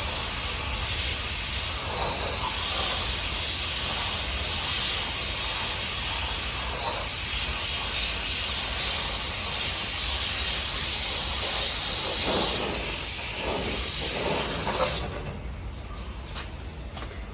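Spray-paint gun hissing steadily as compressed air atomises base-coat paint onto a car body, then cutting off suddenly about fifteen seconds in when the trigger is released. A quieter low background with a few faint clicks follows.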